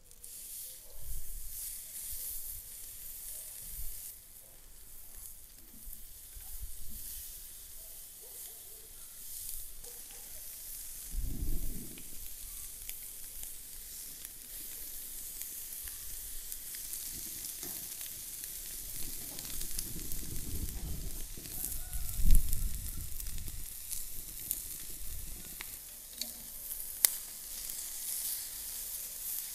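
Raw bone-in beef rib steaks sizzling as they are laid on a hot charcoal grill grate, the hiss building as more meat goes on. A few dull thumps come about 11 seconds in and again around 20 to 23 seconds in, the loudest near 22 seconds.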